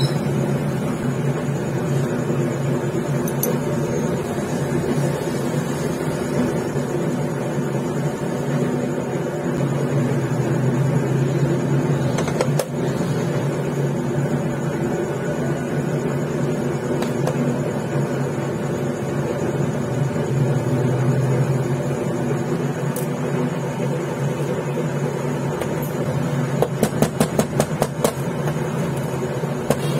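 Steady low machine hum of a workshop motor running throughout. Near the end comes a quick run of light clicks, about four or five a second.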